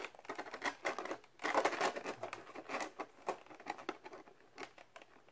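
Fingernails picking and scratching at tightly stuck packing tape on clear plastic packaging. The plastic crinkles and clicks in quick, irregular bursts, busiest about one and a half to two and a half seconds in.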